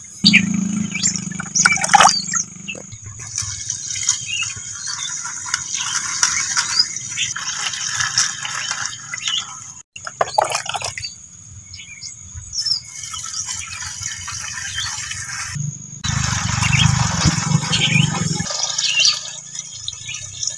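Water poured by the bowlful into the narrow neck of a large plastic water jug, in several pours with breaks between them.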